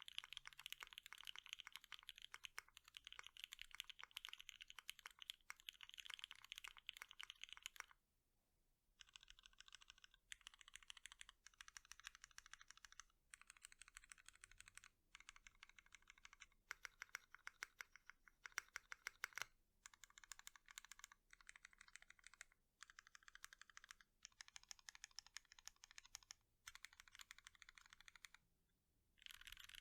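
Typing on an ATXKB Moontower V2 custom mechanical keyboard, o-ring mounted with a POM plate, lubed Gateron Ink V2 linear switches, Cherry clip-in stabilizers and JTK keycaps. Fast continuous keystrokes for the first eight seconds, a brief pause, then bursts of typing a second or two long, each broken by short pauses.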